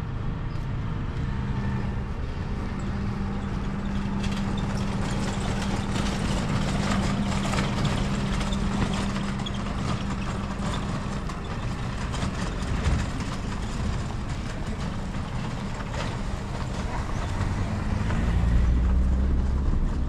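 A motor vehicle engine running steadily with a low hum, growing louder near the end.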